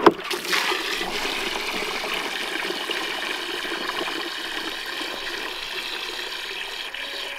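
Water from a garden hose pouring steadily into a partly filled livestock water trough, splashing into the standing water as the trough is topped off.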